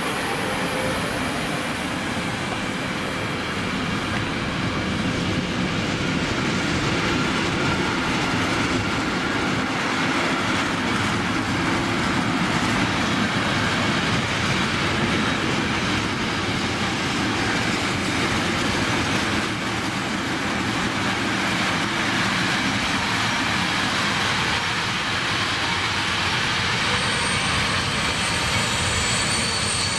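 Container freight train rolling past, a steady rumble and rattle of the wagons' wheels on the rails. Near the end, a thin high wheel squeal sets in over the rolling noise.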